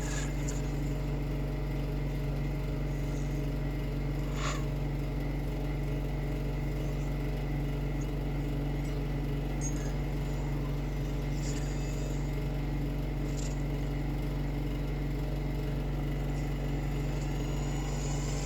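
A steady low hum with several evenly stacked tones, unchanging throughout, with a few faint clicks and chirps, the clearest about four and a half seconds in.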